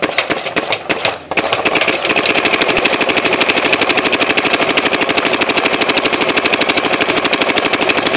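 Vanguard paintball marker firing: a few single shots, then from about a second in a fast, steady stream of shots in full-auto or ramping fire.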